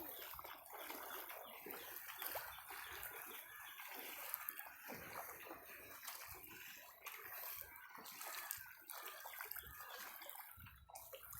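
Floodwater flowing and trickling, faint and steady.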